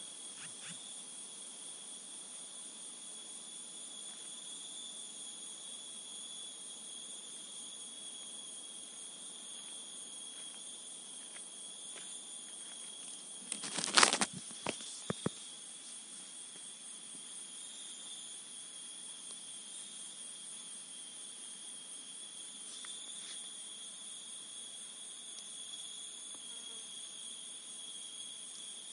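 Chorus of crickets and other insects shrilling steadily at several high pitches. About halfway through there is a brief cluster of loud clicks and knocks.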